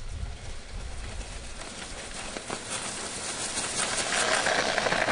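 G-scale model diesel locomotives pushing a snowplow through deep snow, a busy whirring and crackling of the train's motors, wheels and plowed snow growing louder as it comes close, loudest near the end.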